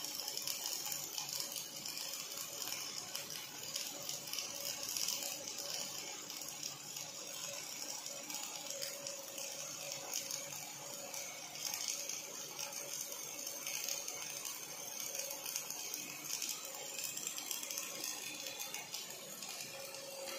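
Robotic MIG welding arc on steel, an OTC welding robot's wire-fed torch crackling and sizzling steadily as it lays a continuous bead, over a faint steady hum.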